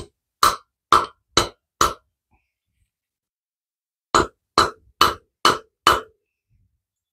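Mallet tapping a loose press-fit valve seat back into a Briggs & Stratton overhead-valve cylinder head: four quick taps, a pause of about two seconds, then five more, about two taps a second.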